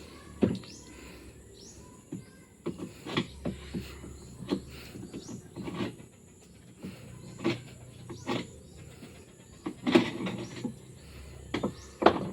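Sharp knocks and clatter at irregular intervals, a dozen or so strikes, some in quick pairs, over a steady high insect drone.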